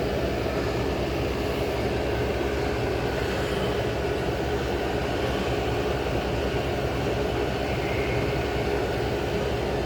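Old General Electric Carry Cool air conditioner running steadily: an even fan-and-compressor drone with a constant hum and a steady tone.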